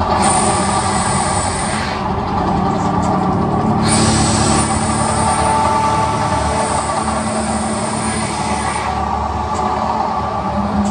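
Gas flame jets of an attraction's volcano show firing with a loud hiss, once for about two seconds near the start and again for about five seconds from four seconds in, over a steady low rumble.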